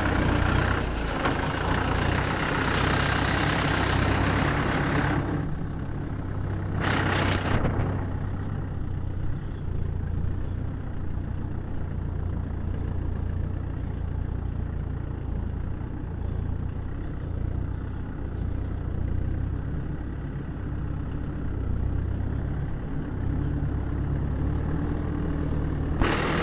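Farm tractor's diesel engine running steadily, heard from the driver's seat, with a loud hiss over it for about the first five seconds and again briefly about seven seconds in.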